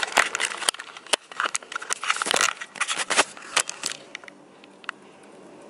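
Camera handling noise: a dense run of rustles, clicks and knocks for about four seconds as the camera is moved and turned.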